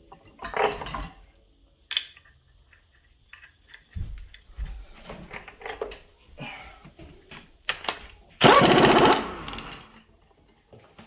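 Metal strut parts and tools clinking and knocking as they are handled and fitted together, with a loud rattling burst about a second long near the end.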